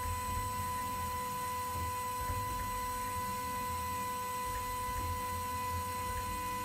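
High-speed spindle of a Ringmaker CNC jewelry milling machine engraving a pattern into a gold bangle: a steady, even whine over a low hum.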